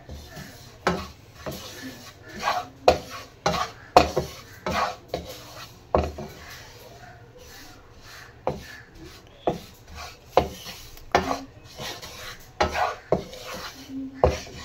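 Wooden spatula scraping and knocking against a nonstick pan while gram flour roasting in ghee is stirred, with irregular sharp taps every half second to a second.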